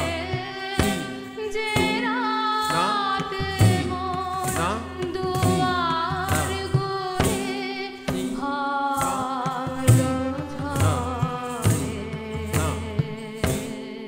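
Indian classical music: a gliding melody on violin and female voice over a steady drone, with tabla strokes marking a regular beat about once a second.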